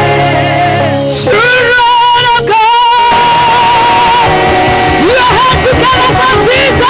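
Live gospel worship music: a singer holds a long, wavering high note over a band with steady bass, and short whoops from the congregation start near the end.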